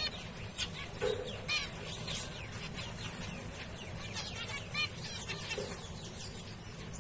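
A group of zebra finches calling: many short, repeated beeping calls from several birds overlap, a few each second. A steady low hum runs beneath them.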